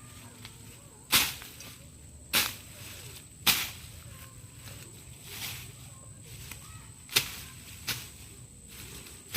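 A series of sharp strikes or knocks, three loud ones about a second apart followed by several softer ones, over a steady thin high-pitched tone.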